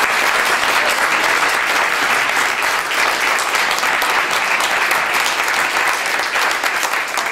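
Many people applauding, a dense steady clapping that dies away right at the end.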